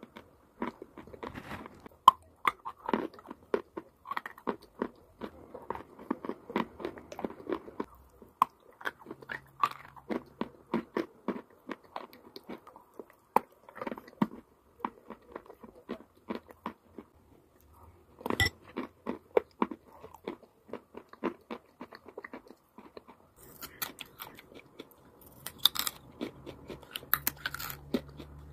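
Close-miked biting and chewing of crunchy chalk and clay: a rapid run of sharp, crisp crunches with a brief lull about three-quarters of the way through.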